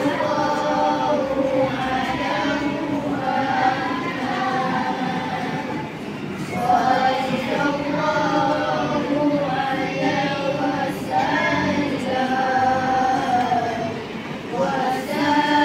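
A group of boys singing marhaban together without accompaniment: Malay Islamic devotional chanting in praise of the Prophet, in long, drawn-out melodic phrases, with short breaks between phrases about six and fourteen seconds in.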